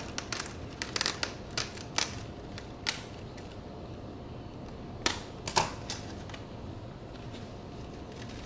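Scissors snipping through a plastic mesh net sleeve on a plant pot: a run of sharp, irregular clicks, most of them in the first three seconds, with two louder snips about five seconds in. After that only faint clicks are heard while the net is worked loose.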